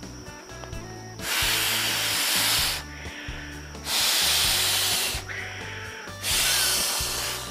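Three long breaths blown into the valve of an inflatable camping pillow, each a rushing hiss lasting a second or more, with short pauses between blows.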